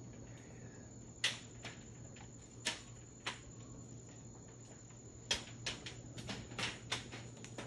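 Scattered sharp taps of berries dropped by monkeys feeding in the tree above, landing on a roof: a few single taps, then a quicker irregular patter in the second half.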